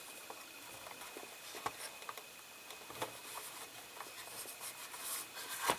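Small clicks and light rustling of plastic model car parts being handled and fitted, with a sharper, louder click near the end.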